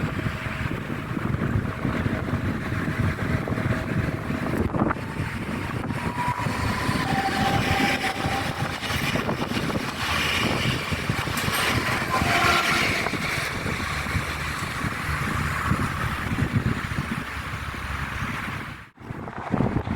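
Train passing with a steady rumble, wind buffeting the microphone, and a few brief high tones in the middle. The sound drops out sharply near the end.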